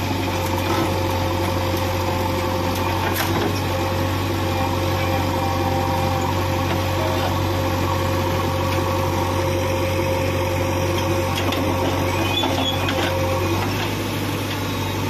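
JCB backhoe loader's diesel engine running steadily while the backhoe arm works, loading soil into a tractor trolley, with a thin steady whine above the engine hum that fades out near the end.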